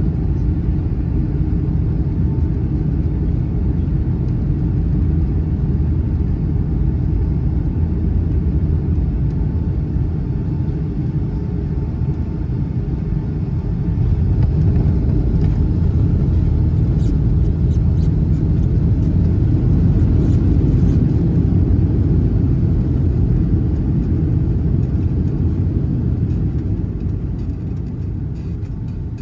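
Cabin noise of a Boeing 757-200 landing: a steady low rumble of engines and airflow on short final, which grows louder about halfway through as the jet is on the runway, with a few light rattles, then eases near the end as it slows on the rollout with spoilers up.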